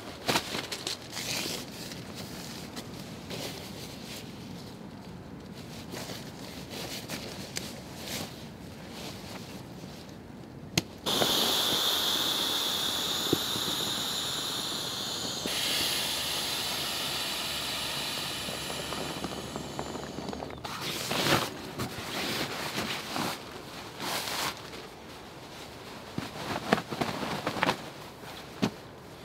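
Dry leaf litter and nylon gear rustling and crackling as camping kit is handled. About a third of the way in comes a loud, steady rush of air through an inflatable sleeping mat's valve, lasting about ten seconds and stopping abruptly.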